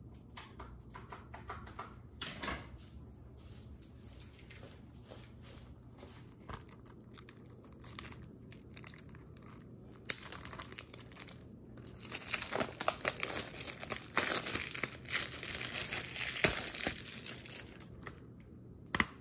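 Plastic shrink-wrap being torn and crumpled off a new Blu-ray case. There are scattered crinkles at first, then a stretch of dense crinkling in the second half, and a single sharp click near the end.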